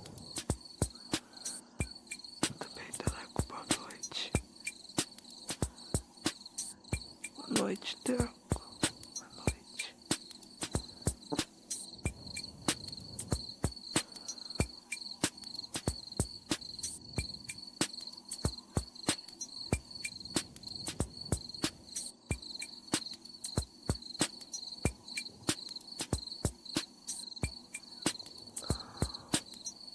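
Crickets chirping: a steady high trill with many sharp, regular ticks throughout.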